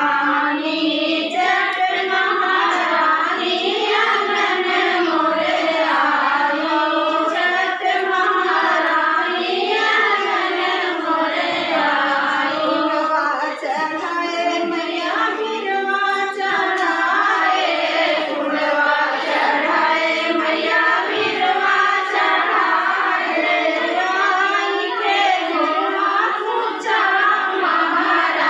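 A group of women singing a devotional folk song (geet) together for a goddess puja, without a break.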